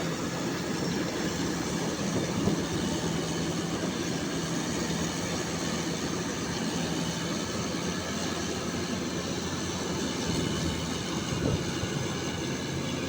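Combine harvester's diesel engine running steadily with a constant hum.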